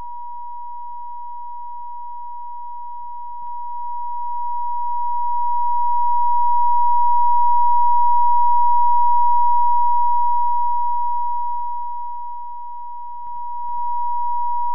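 Steady 960 Hz computer-generated sine tone from a sound-wave simulation, heard at the simulated listener's position. It swells louder as the listener is moved close to the speaker, fades back as it is moved away, and steps up again near the end.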